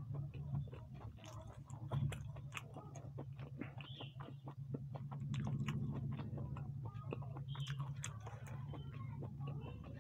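A person chewing food, with many small irregular mouth clicks and smacks, over a steady low hum.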